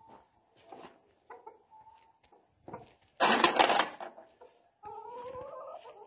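Chickens clucking in short soft calls, then a loud, harsh, noisy burst lasting under a second about three seconds in. Near the end comes one drawn-out call that rises in pitch.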